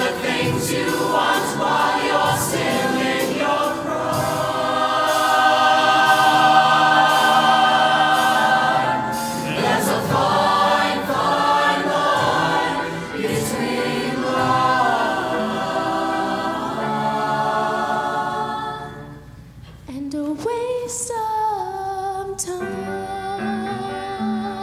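Mixed show choir singing full-voiced with instrumental accompaniment, holding long chords. About 19 s in the ensemble drops away and a solo female voice begins singing into a microphone over lighter accompaniment.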